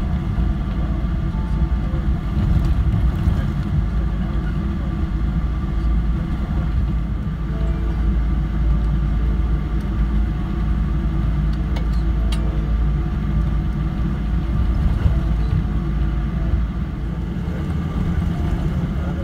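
Cabin noise of a Boeing 777-300 taxiing after landing, heard from a window seat: a steady low rumble with an even engine hum over it. Two faint clicks about twelve seconds in.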